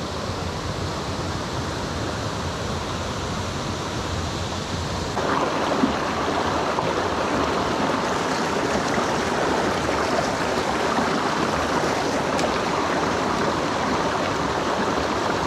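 Rushing water of a small creek, a steady noise that gets louder and brighter about five seconds in.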